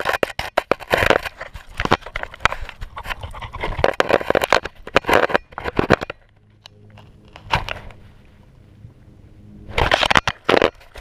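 Dense scratching, rubbing and crunching from a collar-mounted GoPro brushing against a Welsh Springer Spaniel's fur and gritty granite as the dog noses along the rock. It comes in irregular clusters of clicks and scrapes, eases off about six seconds in, and starts again near the end.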